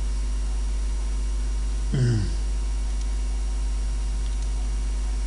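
Steady low electrical hum, with a short falling vocal murmur about two seconds in and a faint click near the end.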